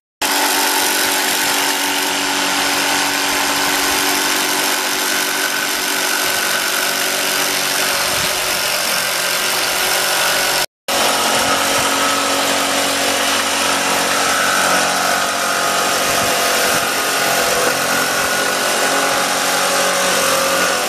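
Ryobi jigsaw running continuously as its blade cuts through a plywood sheet, a loud, steady buzz with a short break about halfway through.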